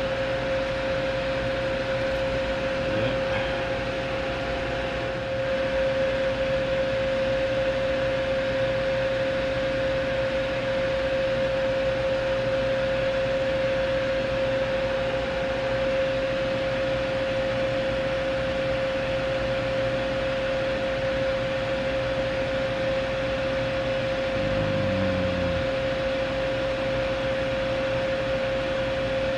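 Small bench fan running steadily: an even whir with a steady mid-pitched tone in it.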